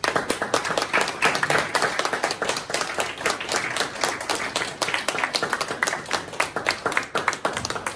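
A small audience applauding: many hands clapping at once in a dense, irregular patter that starts abruptly.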